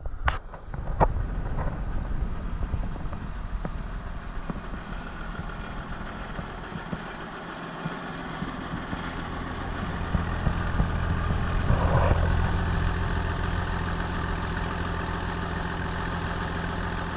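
John Deere 544E wheel loader's diesel engine idling steadily after a cold start in freezing weather. It grows louder from about ten seconds in.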